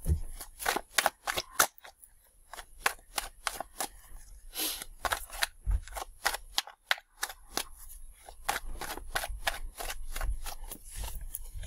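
A deck of tarot cards shuffled in the hands: a quick, irregular run of card flicks and slaps, pausing briefly twice.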